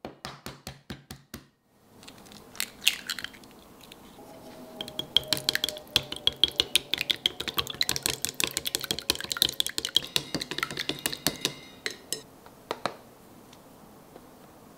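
Kitchen utensils clicking and clinking against dishware. A short row of taps comes first, then a long run of quick clinks at several a second that stops about a second before the end.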